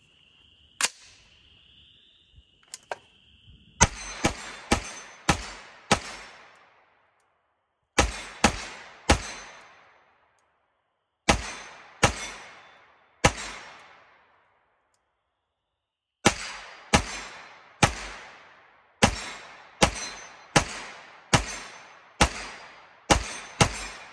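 Grand Power Stribog 9mm carbine, fitted with an HB Industries short-stroke buffer, firing single semi-automatic shots about half a second apart. The shots come in strings of five, three, three and about fourteen, with short pauses between them, and each report leaves a brief fading echo. A sharp click sounds about a second in, before the first shot.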